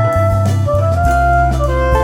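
Background music: a jazzy tune with a melody on a reed or brass wind instrument stepping from note to note over a steady bass line.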